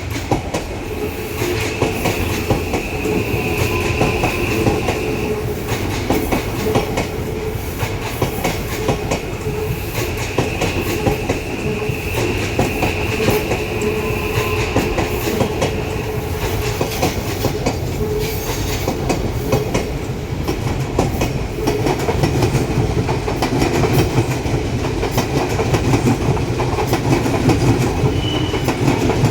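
Odakyu Electric Railway train passing slowly at close range, its wheels clacking over the rail joints, with a high steady wheel squeal that comes in twice and fades again.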